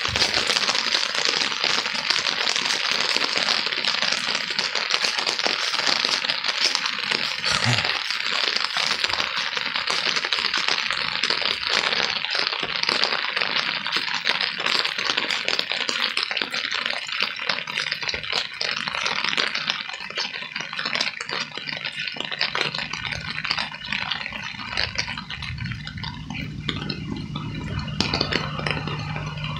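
Steady rain falling, a dense patter of many small drops hitting hard surfaces. A low steady hum comes in near the end.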